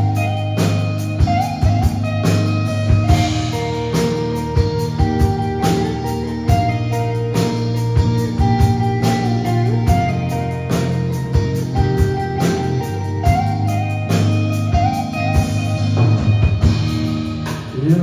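Live rock band playing an instrumental intro: an electric guitar melody with sliding, held notes over bass guitar and a drum kit.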